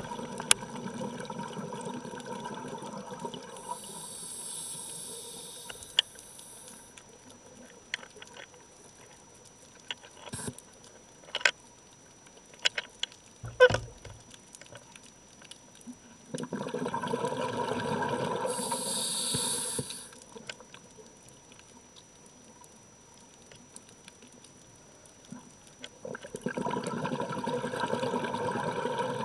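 A scuba diver breathing through a regulator, heard underwater: long bubbling exhalations about every ten seconds, with a high hiss between them. Scattered clicks and knocks come in the middle stretch.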